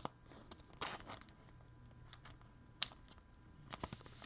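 Faint rustles and scrapes of trading cards being handled, in several short bursts, with one sharp click about three seconds in.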